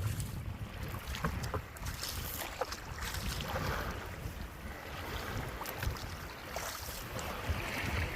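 Wind buffeting the microphone in a steady low rumble, with water splashing and swishing and a few small knocks.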